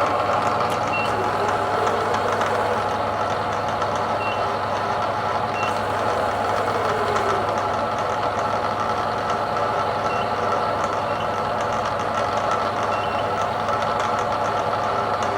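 2 HP variable-speed Bridgeport ram-type vertical mill with ProtoTrak CNC control running under power: a steady motor and drive hum with several held tones. Short high beeps sound now and then, and a tone slides down about six seconds in.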